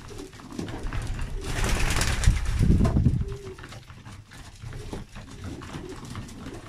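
A flock of feather-footed South German Monk pigeons cooing while feeding at a grain trough, with many short pecking taps. A louder burst of noise swells about two seconds in and fades by about three seconds.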